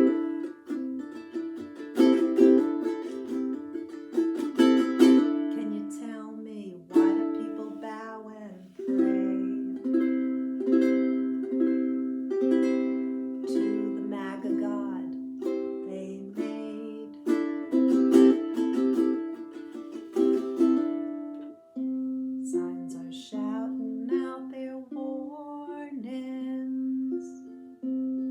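Tenor ukulele played solo: chords and melody notes plucked at a slow pulse of about one a second, each ringing and fading before the next.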